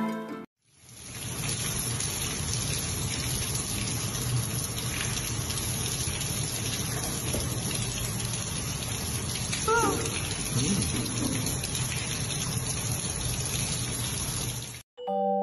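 Steady rush of running water in a hot-spring pool, with a brief pitched cry about ten seconds in.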